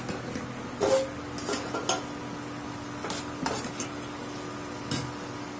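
Steel ladle stirring diced raw banana in a nonstick frying pan: a string of irregular scrapes and knocks of metal against the pan, over a steady low hum.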